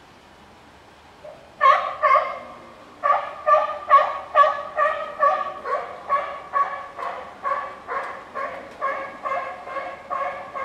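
An animal calling over and over: two calls, then a steady run of about twenty short, evenly pitched calls at roughly two or three a second.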